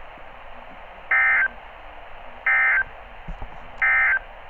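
NOAA Weather Radio SAME end-of-message data tones through a weather radio's speaker: three short, identical buzzy data bursts about a second and a half apart over a steady hiss. They mark the end of the tornado warning broadcast.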